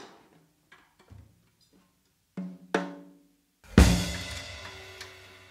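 Solo drum kit played sparsely: a few light strokes, two sharper hits, then a loud kick-and-crash-cymbal hit about four seconds in that rings out and slowly fades.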